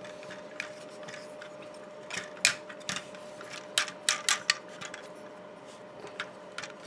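Plastic parts of a Transformers action figure clicking and tapping as its arms and hand-held weapons are handled and repositioned, with a cluster of sharp clicks in the middle. A faint steady hum sits underneath.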